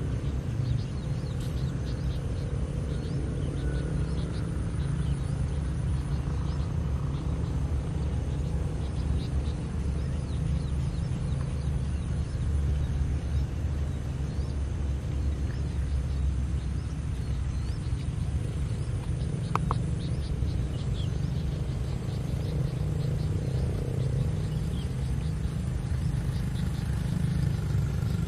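Steady low rumble of outdoor background noise, with faint high bird chirps scattered through it and a short tone about two-thirds of the way in.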